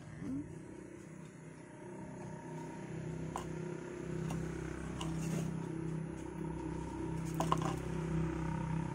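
A steady low hum, like a motor running, that grows gradually louder. Over it come a few sharp clicks and scrapes of a plastic trowel working potting soil, the busiest about three-quarters of the way in.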